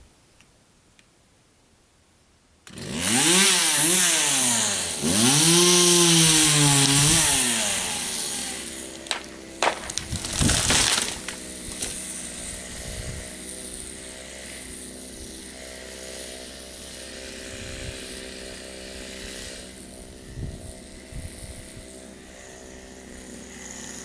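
Gas chainsaw coming on about three seconds in and running hard through a felling cut, its pitch rising and dropping as it bogs under load. About ten seconds in, a dead pine tree crashes to the ground, and after that the saw idles steadily.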